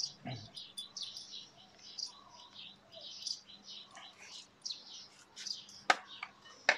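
Small birds chirping with many quick high calls, and two sharp clicks near the end.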